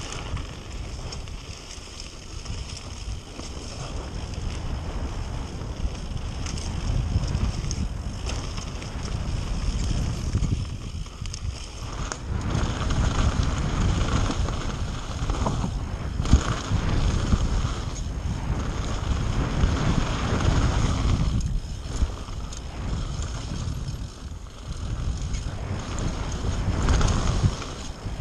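Mountain bike descending a dirt and gravel trail, with wind rushing over the action camera's microphone, the tyres running over the loose surface and the bike rattling, the noise swelling and easing in surges. A sharp knock sounds about 16 seconds in.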